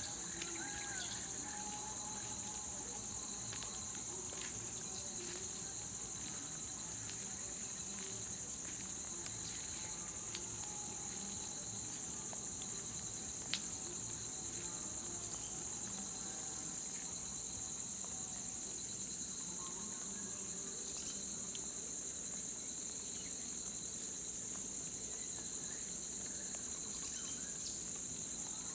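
Steady high-pitched insect chorus droning without a break, with a bird calling briefly in the first second and a single sharp click about halfway through.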